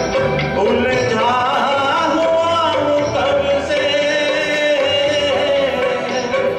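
A Hindi film song performed by a man singing into a microphone over instrumental backing music.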